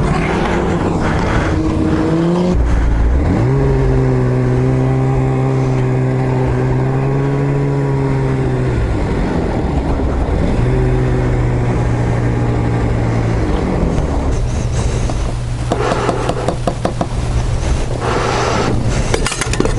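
Two-stroke snowmobile engine running: it revs up, holds a steady pitch for several seconds, drops off, picks up again, then fades into rough, clattering noise.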